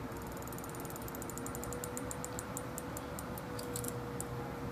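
Solder flux crackling in a quick run of small, sharp ticks as a soldering iron melts solder onto a wrapped motor-wire joint; the ticks space out and stop about four seconds in.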